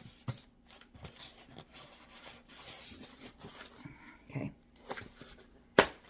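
Styrofoam box being worked open and broken by hand: irregular rubbing, crunching and short clicks, with one sharp crack near the end.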